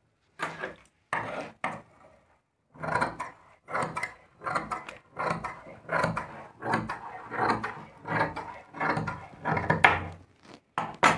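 Large tailor's scissors cutting across a length of cloth on a wooden table: a run of short snips, about two a second, after a few separate snips in the first couple of seconds.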